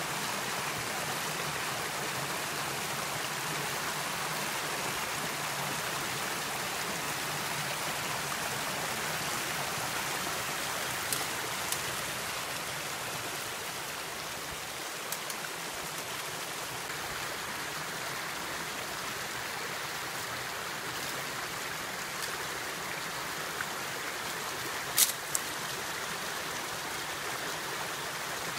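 Shallow creek water running steadily over stones. A few sharp clicks sound over it, the loudest near the end.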